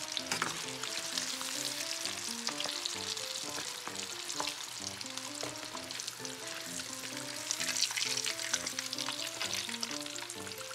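Hot oil sizzling steadily as cornstarch-coated largemouth bass pieces deep-fry in a carbon steel wok. Soft background music with short stepping notes plays underneath.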